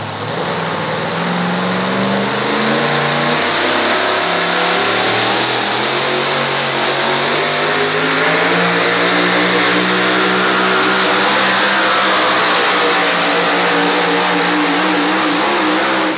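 Four-wheel-drive pulling truck's engine running loud at high revs under load for a sustained pull, its pitch rising and dipping several times.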